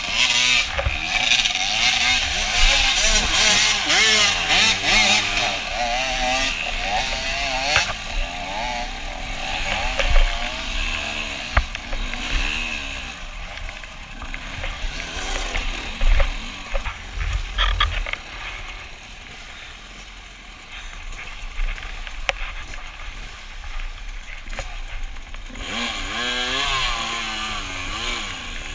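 Off-road dirt bike engines revving up and down over and over on a cross-country trail, with scattered knocks and thumps. The engines are loudest at the start and again near the end, and die down for a few seconds past the middle.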